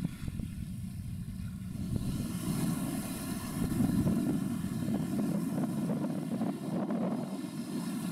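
Low, steady drone of marine diesel engines across the water, swelling slightly a couple of seconds in.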